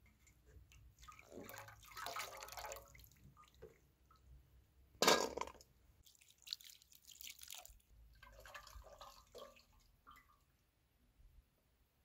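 Water poured from a plastic jug, splashing in short irregular spells, with the loudest splash about five seconds in.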